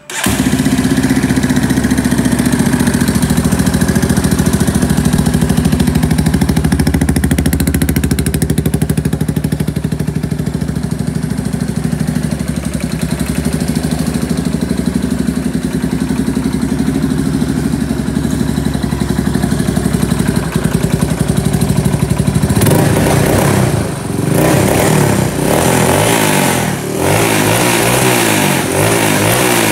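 Yamaha Warrior YFM350 ATV's single-cylinder four-stroke engine idling steadily, then revved up and down with repeated throttle blips for the last several seconds.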